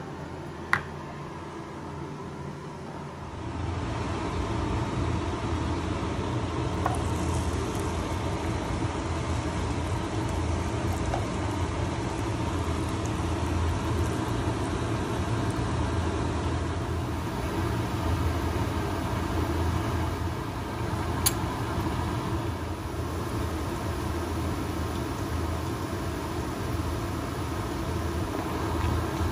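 Rempeyek batter of rice flour, peanuts and anchovies deep-frying in hot oil in a pan: a steady sizzle with a low rumble under it, starting about three and a half seconds in after a quieter stretch. Two sharp clicks stand out, one about a second in and one about two-thirds through.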